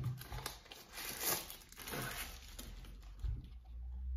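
Plastic protective sleeve rustling and crinkling as a drone's remote controller is pulled out of it, with a low bump about three seconds in.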